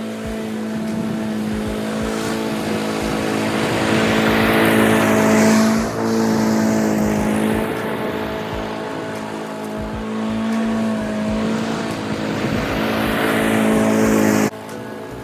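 Gasoline engine of a 2016 Honda twin-blade walk-behind lawn mower running steadily while mowing, growing louder and softer in turn. It cuts off abruptly near the end.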